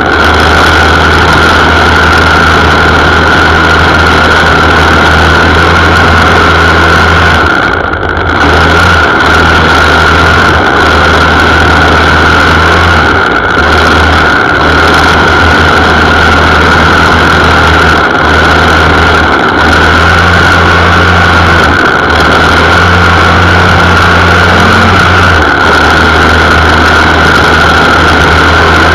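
Gas string trimmer (weed eater) engine running at working speed while cutting grass, loud and steady with a high whine, its low engine note dipping briefly several times.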